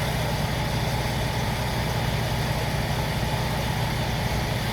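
Vehicle engine idling steadily, a low even hum with no change.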